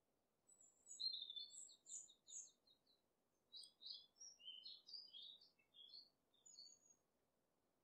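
A small bird singing: two runs of quick, high chirping notes, the second starting about three and a half seconds in, over a faint low background hiss.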